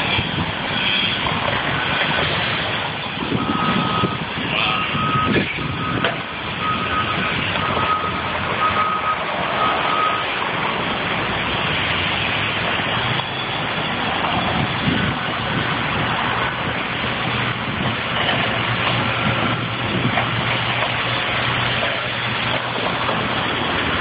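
Reversing alarm on tree-clearing heavy equipment beeping in a steady run of short, even beeps, stopping before the halfway point, over the constant noise of the working machinery's engines; a low engine hum joins in the second half.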